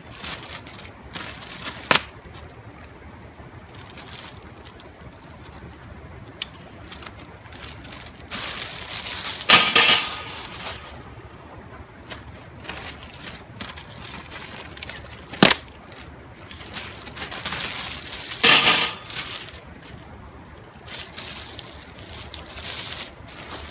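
Metal parts of a barbecue grill being handled during assembly: scattered sharp metallic clinks, with a few longer bursts of rustling and scraping.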